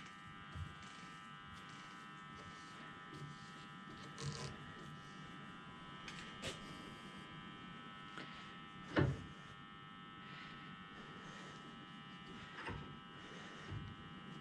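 A steady electric motor whine, made of several high tones, with a handful of short knocks and clunks, the loudest about nine seconds in, as an ash log is fitted between the centres of a vintage woodworking lathe.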